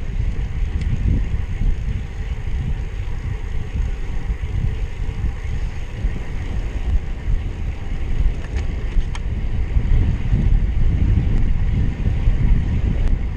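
Wind rushing and buffeting over the microphone of a handlebar-mounted camera on a road bike moving at speed: a steady, low, fluttering rumble.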